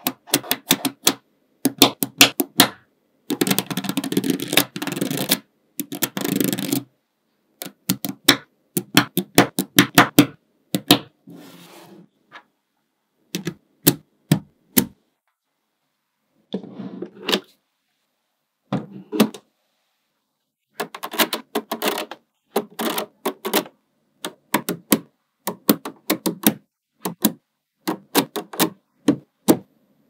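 Small magnetic balls clicking sharply as they snap onto one another, in quick runs of clicks with silent pauses between. A couple of longer stretches of dense clicking and rattling come a few seconds in.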